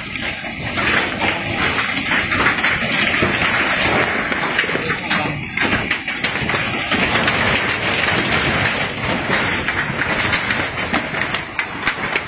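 Earthquake-shaken ground and debris moving: a loud, continuous rumble full of crackling and clattering, with people's voices mixed in.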